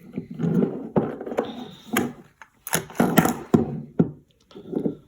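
Irregular clicks and knocks as the plastic-and-metal parts of a CO2 BB pistol are handled, with the sharpest cluster of clicks a little past the middle.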